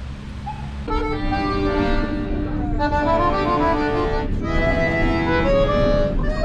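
Piano accordion playing a tune in held chords, starting about a second in, over a low steady rumble.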